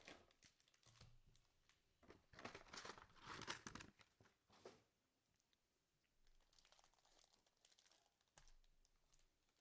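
Faint tearing and crinkling of sports card pack wrappers being ripped open, loudest in a burst of ripping from about two to four seconds in.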